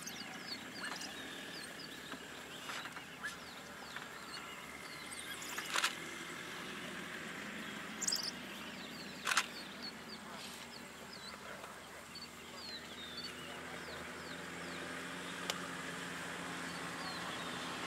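African wild dogs feeding at an impala kill: scattered short, high-pitched falling squeaks and chirps, with a few sharp snaps, loudest about six and nine seconds in, over a faint steady low hum.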